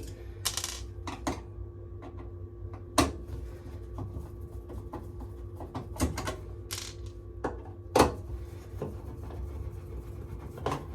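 Irregular clicks and knocks of a Phillips screwdriver and screws being worked out of a tumble dryer's cover panel, with two sharper knocks about three and eight seconds in.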